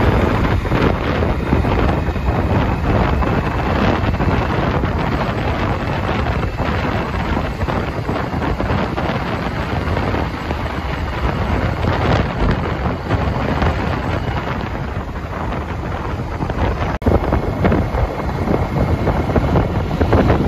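Steady, heavy wind rushing over the microphone, with vehicle noise beneath it, broken for an instant about 17 seconds in.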